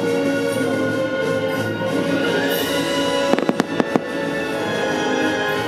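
Aerial firework shells bursting in a quick cluster of about five sharp bangs a little past halfway, over steady fireworks-show music.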